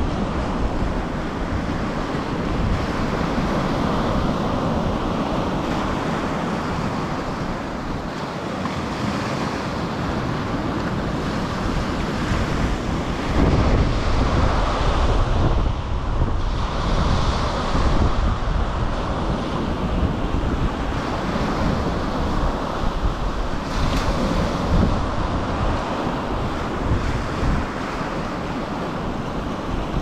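Small surf breaking and washing up a sandy beach, a continuous rush of water that swells now and then, with wind buffeting the microphone.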